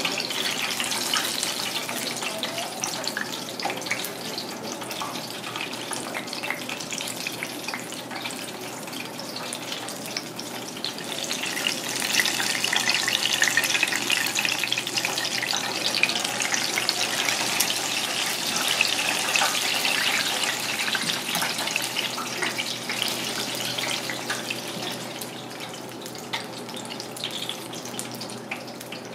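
Spring rolls deep-frying in a fryer of hot oil: a dense, steady sizzle and crackle of bubbling oil. It grows louder through the middle and eases off near the end.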